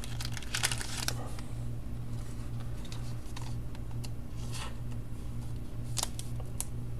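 Trading cards being handled and laid on a wooden tabletop, making a few faint clicks and rustles over a steady low hum.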